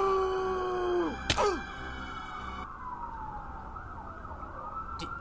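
A long held yell falls off about a second in and a short thump follows. Then a police siren wails, falling in pitch and rising again.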